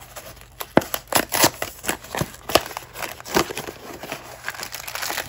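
Toy packaging being handled: plastic wrapper crinkling, with a quick string of sharp clicks and taps.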